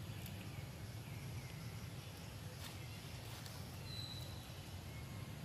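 Outdoor background: a steady low rumble with a few faint, short high bird chirps, one clearer whistle about four seconds in.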